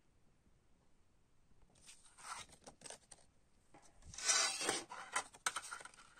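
Paper CD booklet rustling and crackling as it is handled and put back into its plastic case, with small sharp clicks. It comes in two spells, the louder one about four seconds in.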